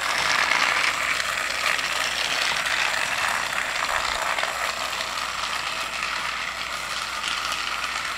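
Battery-powered Thomas & Friends TrackMaster Rebecca toy engine's small geared motor whirring steadily as it pulls a loaded train on plastic track, its wheels slipping under the load.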